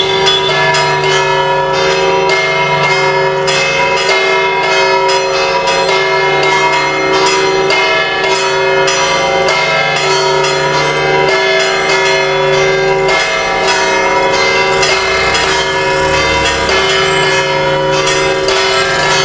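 Church tower bells ringing a full peal: a fast, continuous run of strokes across several bells, each tone hanging on and overlapping the next.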